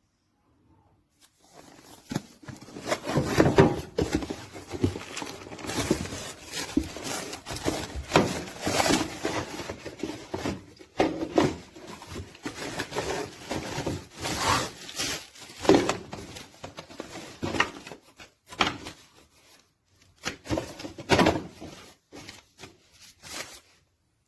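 Rustling, rubbing and light knocking of objects being handled close to the microphone, in irregular scrapes and clicks with short pauses.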